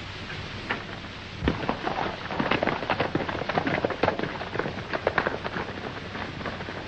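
Hoofbeats of several galloping horses: a dense, irregular clatter that starts about a second and a half in and thins out near the end. It plays over the steady hiss of an old film soundtrack.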